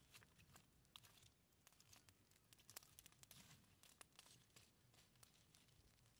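Near silence but for faint, irregular crackles and pops from a small charcoal fire as a stick stirs the coals.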